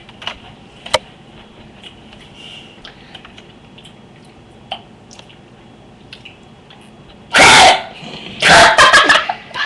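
A boy's loud burp about seven and a half seconds in, then a second, longer broken burst of loud voice a second later, both strong enough to overload the webcam microphone. Before them, only a few small clicks.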